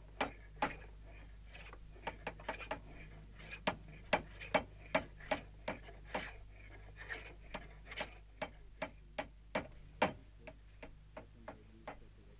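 Hammer blows on wood during timber construction: a run of sharp knocks, about two or three a second, growing fainter and sparser near the end.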